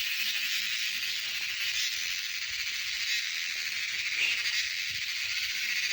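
A steady, high-pitched chorus of many insects buzzing and trilling together in the forest, with no breaks.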